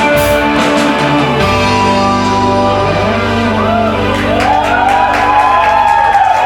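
Live rock band ending a song: the final chord is held and rings with a sustained low bass note. From about halfway through, audience shouts and whoops rise over it.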